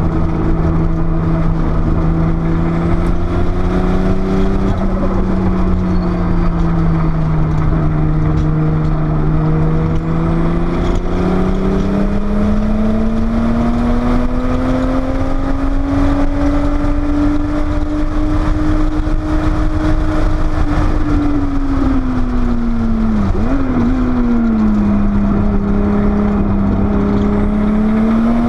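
Porsche 930 Turbo's turbocharged air-cooled flat-six engine running hard at speed, heard from on board, its pitch rising and falling as it pulls, with a quick dip and jump about three quarters of the way through. A steady rush of wind and road noise runs under it.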